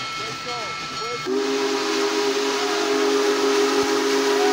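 Union Pacific Big Boy No. 4014 steam locomotive blowing its steam whistle: a steady chord of several tones with a breathy hiss, coming in about a second in and held.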